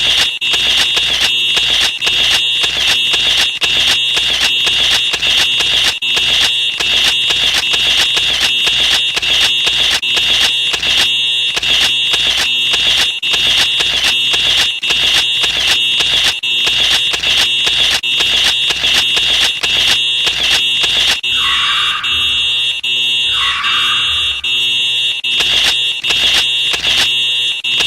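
Fire alarm sounding continuously: a loud, piercing high tone with an even, regular pulse. Two short rising sweeps sound over it about three-quarters of the way through.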